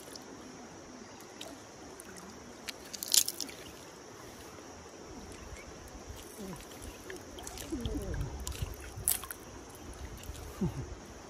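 Water sloshing and gurgling, with a few sharp clicks of stones knocking together. The loudest click comes about three seconds in and another about nine seconds in.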